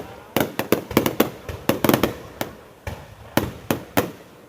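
Fireworks going off: an irregular string of sharp bangs, several a second, with a short lull a little past the middle.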